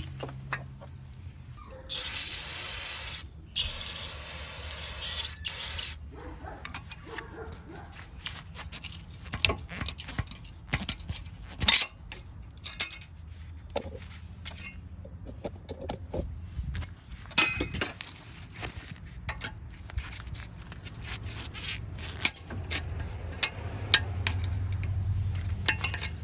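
Aerosol spray can hissing in two bursts, the first about a second long, the second about two seconds, while brake parts are sprayed. Scattered light metallic clicks and taps follow.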